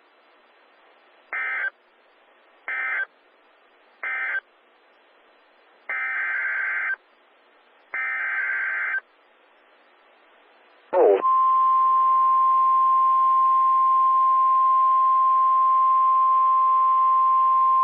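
Emergency Alert System / NOAA Weather Radio signalling. First come three short SAME digital data bursts, the end-of-message code closing the previous warning. Then two longer data bursts of about a second each start the next alert's header, and a short blip about eleven seconds in gives way to a steady, single-pitched warning alarm tone that holds to the end.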